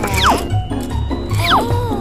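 Background music with a steady low beat, carrying quick falling whistle-like slides.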